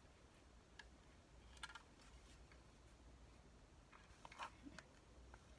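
Near silence: room tone with a few faint clicks and taps from an object being handled.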